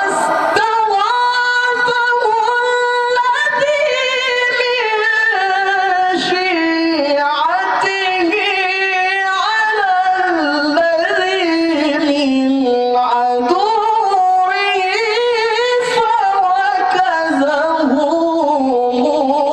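A man reciting the Quran in the melodic tilawah style: one long, high, ornamented sung phrase of held and wavering notes. The line sinks lower through the middle and climbs again near the end.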